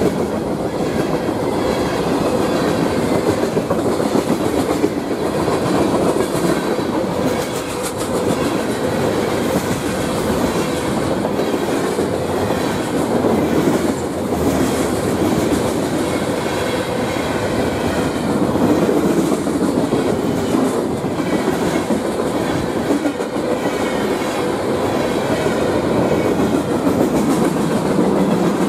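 Freight cars of a long mixed manifest freight train rolling steadily past: a continuous loud rush of wheel-on-rail noise.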